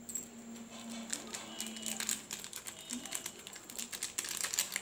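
Small foil-lined sachet of Eno fruit salt crinkling and tearing as it is opened by hand: a run of fine crackling clicks that grow louder and denser near the end.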